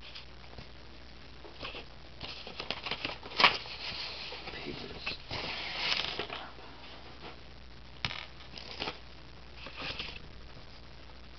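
Trading cards and pack wrappers being handled: short crinkling rustles and sharp clicks. The sharpest click comes about three and a half seconds in, the longest rustle near six seconds, and another cluster a little after eight seconds.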